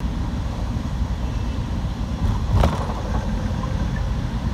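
Steady low rumble of road and engine noise heard from inside a moving vehicle, with a single sharp knock a little past halfway.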